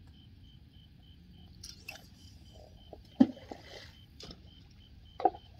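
A few sharp knocks and crunches, the loudest just past halfway and another near the end, over faint steady insect chirping at about four pulses a second.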